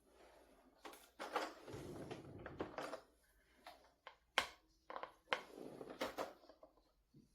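Handling noises: irregular rustling and scraping broken by several sharp clicks, the sharpest about four and a half seconds in.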